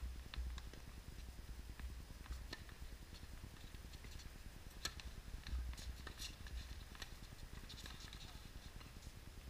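Tennis balls struck by rackets and bouncing on a hard court, heard as scattered sharp pops: the loudest, a serve, comes about five seconds in, and a short run of pops from the rally follows.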